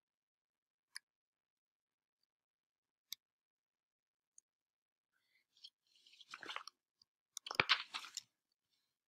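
A few single sharp clicks, like a computer mouse clicking to advance the slides, then two short bursts of crunchy rustling noise near the end, the second the loudest.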